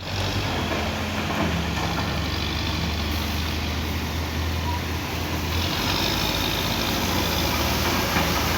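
A large vehicle's engine running steadily: a low hum under a wash of noise.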